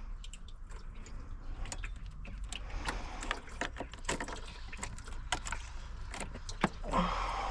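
Irregular light clicks, knocks and clatter of car parts and hand tools being handled while components are stripped from an engine bay, over a steady low hum.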